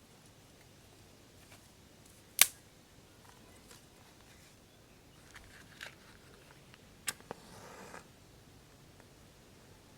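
A few isolated sharp clicks against a quiet background. One loud click comes about two and a half seconds in, fainter ones follow near six and seven seconds, and a short rustle comes just before eight seconds.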